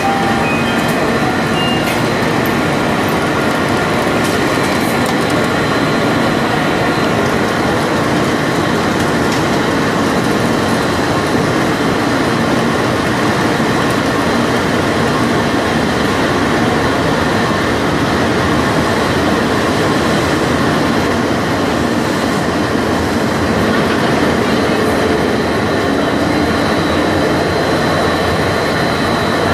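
N700A Shinkansen train pulling out of the platform, its cars rolling past at low speed with a steady, even rumble.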